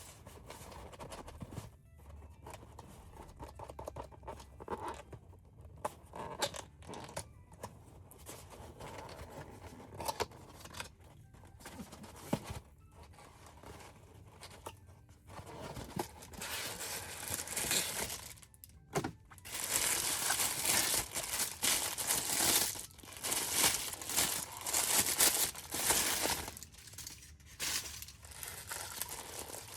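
Plastic wrapper of a McDonald's Happy Meal toy being crinkled and torn open by hand, in irregular rustles at first, then louder and more continuous crinkling through the second half.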